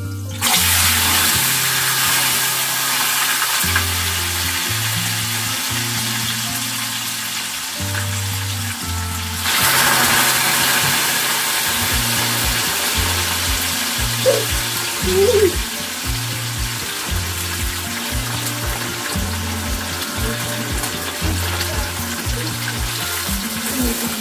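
Food sizzling in hot oil in a frying pan on a gas stove, starting suddenly just after the start as food goes in and surging again about ten seconds in. Background music with a steady bass line plays throughout.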